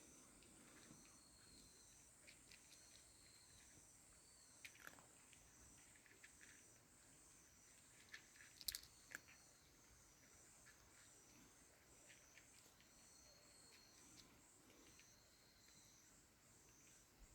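Near silence with faint, high-pitched, rhythmic chirring of insects in the background and a few soft clicks, the loudest about nine seconds in.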